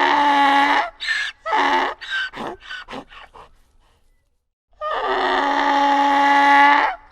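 Donkey braying: a long held call, then a run of short, rapid calls that trail off, about half a second of silence, then a second long held call starting about five seconds in.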